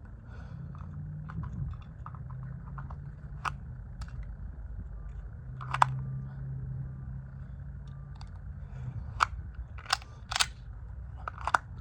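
Handling of a pistol and its holster: scattered sharp clicks and knocks, the sharpest about six seconds in and several more near the end, over a low steady hum in the middle.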